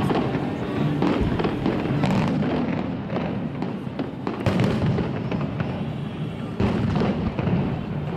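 Aerial fireworks shells bursting in rapid succession, a dense run of bangs, with sharper reports about four and a half and six and a half seconds in.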